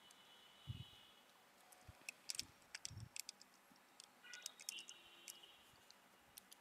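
Faint, irregular clicking and light tapping, with two soft low thumps, about a second in and about three seconds in.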